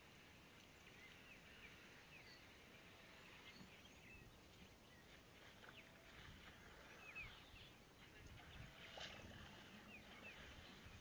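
Near silence: faint open-air ambience with scattered short, high chirps throughout.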